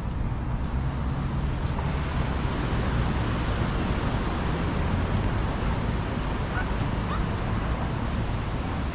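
Ocean surf washing onto the beach, with wind on the microphone; the hiss of the surf grows louder about two seconds in.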